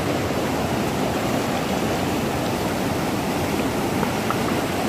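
Fast, turbulent river rapids rushing steadily, an even wash of white-water noise.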